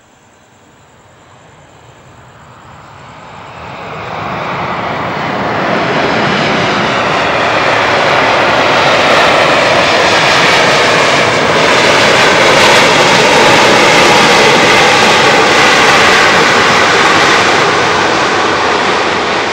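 Four jet engines of an Airbus A340-300 airliner rolling along the runway just after landing. The noise swells as the aircraft approaches, is loudest as it passes, and eases near the end.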